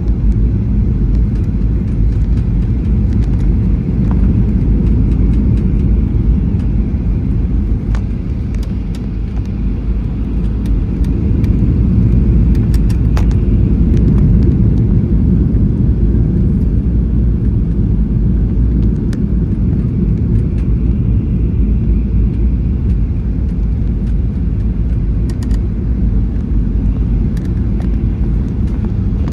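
Airliner cabin noise: a steady low rumble of the engines and airflow heard from inside the cabin, with scattered light rattles and clicks.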